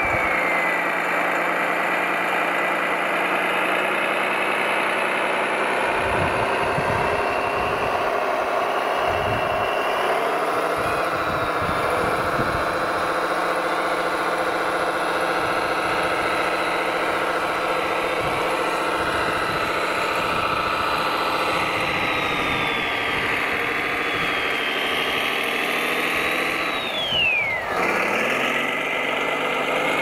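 Radio-controlled model heavy truck running: a steady diesel-engine sound from its sound module, with the thin high whine of its electric drive motor. The whine dips sharply and comes back up near the end.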